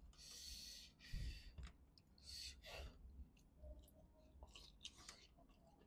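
Faint breathy exhales, four short sighs in the first three seconds, from a person eating spicy chicken curry by hand, with a soft bump about a second in. Small wet mouth and finger clicks of eating follow.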